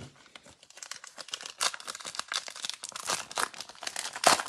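Gold foil trading-card pack wrapper crinkling in the hands and being torn open: a quick, irregular run of crackles, loudest near the end.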